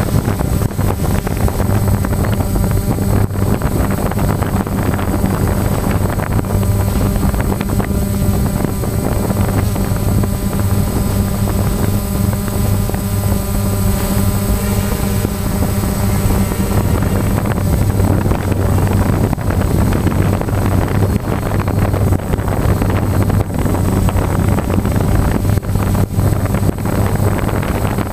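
Loud, steady machine hum: a constant low drone that holds one pitch throughout, over a dense rushing noise, with fainter higher tones wavering through the middle.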